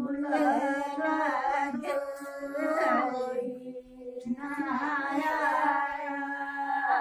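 Women singing a traditional wedding folk song together, in long held, wavering phrases with a short break for breath about halfway through.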